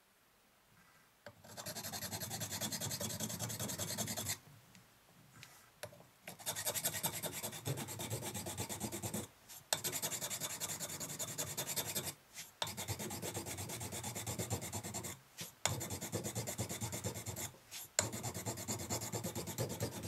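A red-lacquered wooden fork being hand-sanded over its repaired crack with a small abrasive, in fast back-and-forth rubbing strokes. The rubbing starts about a second in and runs in stretches of a few seconds, with short pauses between them.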